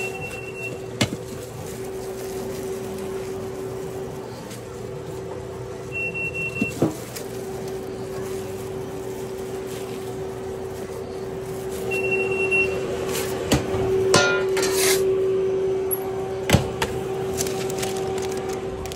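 Busy sandwich-counter kitchen sounds: a steady appliance hum, a short high electronic beep repeating about every six seconds, and the knocks, taps and rattles of sandwich-making at a stainless-steel prep counter and oven tray, the loudest a sharp knock about two and a half seconds before the end.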